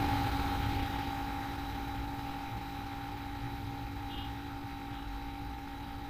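Steady low hum and rumble of background machine noise, with two constant tones running through it. It is a little louder in the first second, then settles.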